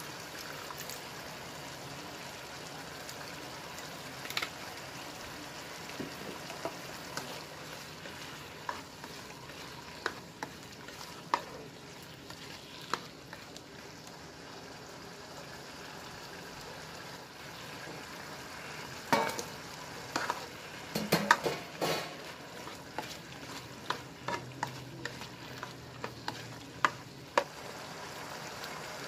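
Sweet-and-sour sauce sizzling in a nonstick wok while a spatula stirs it, with scattered clicks and scrapes of the spatula against the pan. The knocks come thickest and loudest about two-thirds of the way through.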